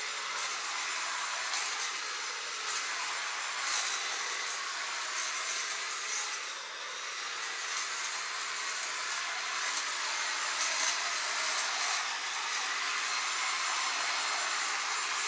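Electric hedge clippers running steadily while trimming a hedge, with short sharp crackles every second or so as twigs are cut, dipping briefly about halfway through.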